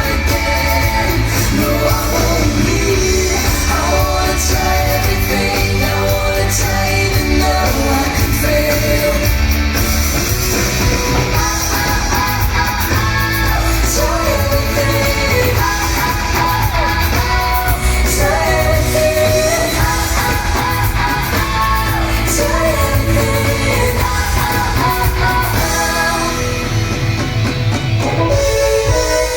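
Loud pop-rock song with a singer over a steady beat and guitar.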